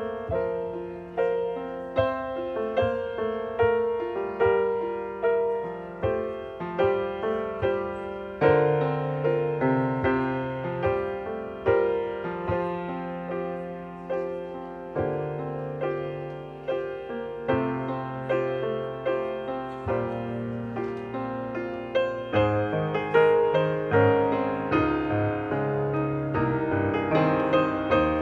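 Solo piano playing, single notes and chords struck one after another and left to ring out.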